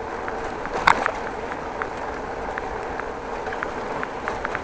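Bicycle being ridden along a street, heard through a chest-mounted action camera: a steady rush of tyre and road noise with small rattling clicks throughout and one louder knock about a second in.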